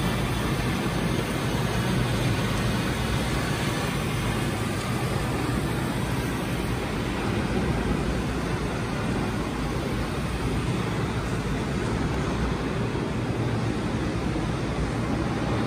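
Steady rush of heavily falling water, a waterfall-like downpour played loudly through loudspeakers in a large dark hall, with a deep low rumble under it.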